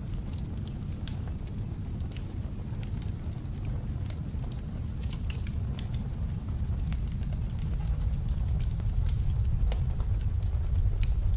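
Wood fire crackling with many small, irregular pops, over a low, steady blizzard wind that grows louder in the second half.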